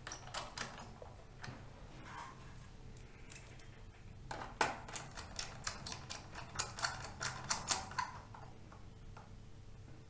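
Irregular small clicks and ticks of a screwdriver driving the screws that hold a laptop motherboard, busiest from about four to eight seconds in.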